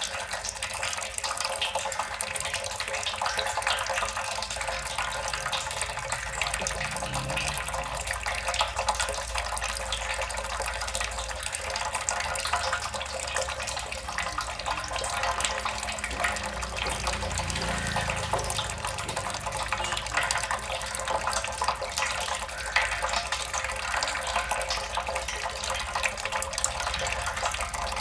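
Water drops falling and splashing in a steady, dense patter that sounds like a tap running into a sink.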